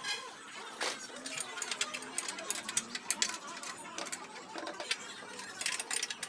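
Irregular metallic clicks and clinks of a spanner working on the bolts of an air compressor's cylinder as they are tightened.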